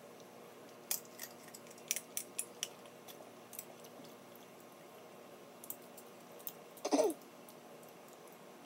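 Close-miked eating of snow crab: sharp cracks and snaps of crab shell being broken apart by hand, with small clicks and chewing. About seven seconds in comes one brief, louder sound that falls in pitch.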